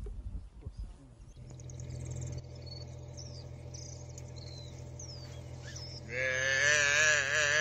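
A calf bawling in distress as a spotted hyena seizes it: one loud, wavering call that starts about six seconds in and is still going at the end. Birds chirp before it.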